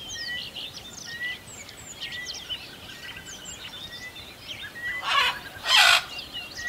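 A busy chorus of small birds chirping and twittering, with a short whistled note repeating about once a second. Near the end come two loud, harsh, noisy bursts about half a second apart, the second the louder.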